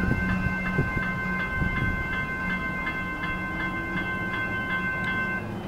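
Level crossing warning bell ringing at about three strikes a second, falling silent near the end, over the low rumble of a Comeng electric suburban train on the line.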